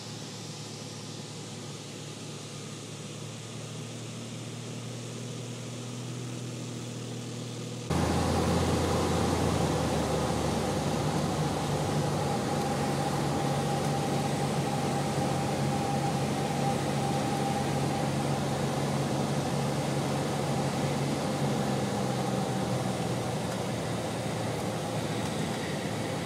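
Cessna 182 Skylane's piston engine and propeller droning steadily as heard inside the cabin, with the rush of air over the airframe. It jumps louder at a cut about 8 s in, and eases off a little near the end as the plane comes in on final approach to land.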